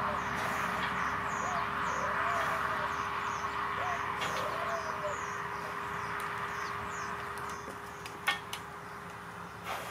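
Small birds chirping repeatedly in short falling notes over a steady background hiss, with a few slow, low rising-and-falling calls in the first half and some sharp clicks near the end.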